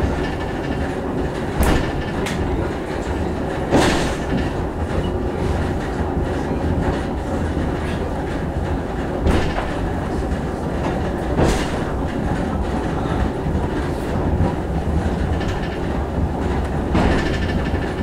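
Sakamoto Cable funicular car running up the track: a steady low rumble of the car's wheels on the rails, with sharp clacks every two or three seconds.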